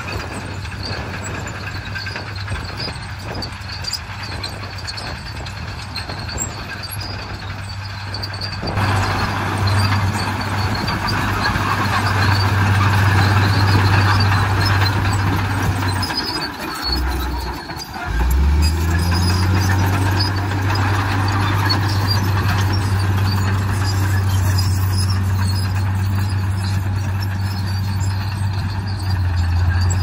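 Komatsu crawler bulldozer's diesel engine running steadily as it pushes soil. The engine grows louder about nine seconds in, dips briefly around seventeen seconds in, then runs steadily again.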